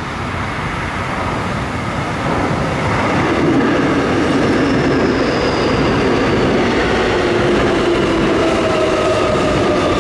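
Seoul Subway Line 7 train pulling into the station and braking. It grows louder over the first few seconds, and then a rumble holds with several whining tones that slowly fall in pitch as it slows.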